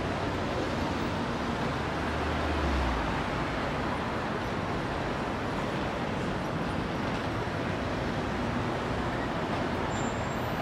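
Busy city street traffic noise: a steady wash of passing cars. A low rumble swells about two seconds in and stops a second later.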